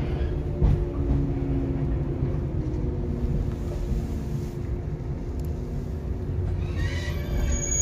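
Shinano Railway 115-series electric train running at speed, heard from inside its motor car KuMoHa 115-1067 with the windows open: a steady rumble of wheels and running gear under a low hum, with a jolt about half a second in. Near the end a high ringing tone with several pitches begins.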